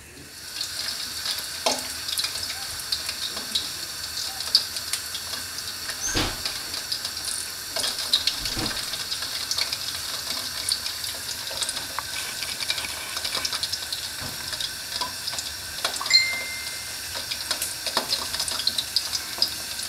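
Battered chicken lollipops deep-frying in hot oil: a steady crackling sizzle as pieces are lowered into the pan, with a few soft knocks.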